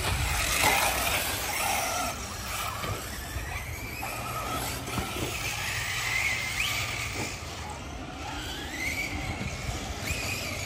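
Radio-controlled cars' electric motors whining, rising and falling in pitch as the cars accelerate and slow, over a low rumble.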